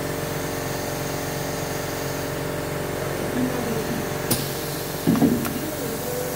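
Steady mechanical hum of a running industrial pneumatic machine. A sharp click comes about four seconds in, and a short louder burst about a second later.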